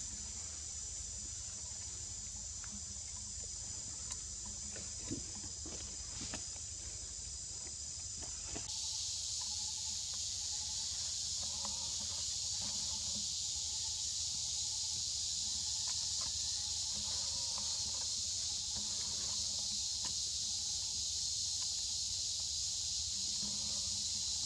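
A steady, shrill chorus of insects that holds throughout and gets louder about nine seconds in, with a few light clicks in the first half.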